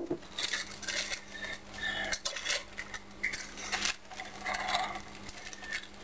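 Food preparation handling sounds: a plastic bag of grated cheese crinkling as it is handled over a glass mixing bowl, with light knocks and clinks of kitchenware, in irregular short bursts.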